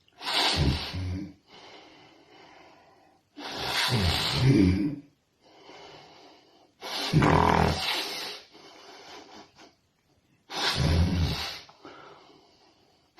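A person making pig-like snorts through the nose, deliberately imitating a pig: four loud snorts about three seconds apart, with quieter breathing between them.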